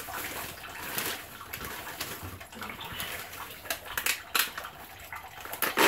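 Kitchen sounds: a steady watery hiss, like running water or food sizzling in a pan, with scattered clicks and clatter of utensils about a second in, near four seconds and near the end.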